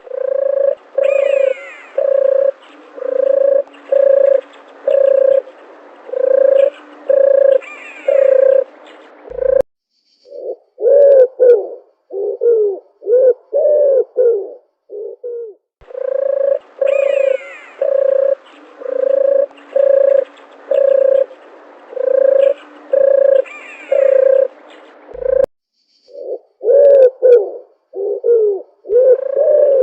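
Doves cooing: a steady series of low coos, a little over one a second, then a short break and a run of quicker coos that bend in pitch, with the whole sequence repeating about halfway through. Fainter chirping of other birds sounds above the coos.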